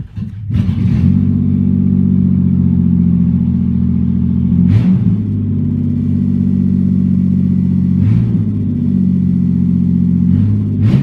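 Toyota Avalon's 3.0-litre V6 with its exhaust open at the headers catching about half a second in, then running loud and steady at a cold fast idle. Its note wavers briefly about three times.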